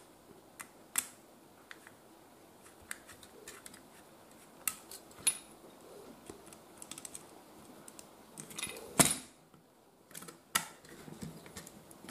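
Small screwdriver tightening a wire into the brass screw terminal of a switch on a plastic extension board: scattered light clicks and scrapes of metal on the screw and plastic, with one sharper knock about nine seconds in.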